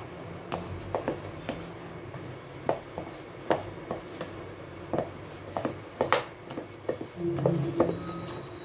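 A spoon scraping and clicking against a mixing bowl as ground chicken paste is stirred together with flour, in irregular strokes about once or twice a second, over a low steady hum.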